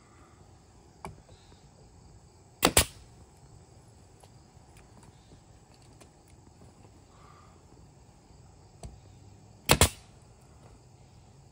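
Air-powered DeWalt nail gun firing nails into a pine frame rail on plywood: two shots about seven seconds apart, each a sharp double crack, with a fainter click about a second before each.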